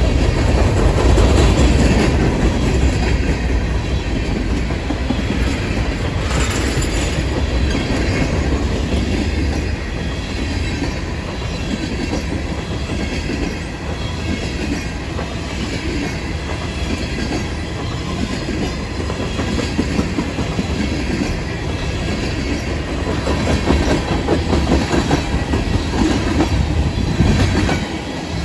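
Railroad cars rolling past on the track: a steady, loud rumble with wheel clatter.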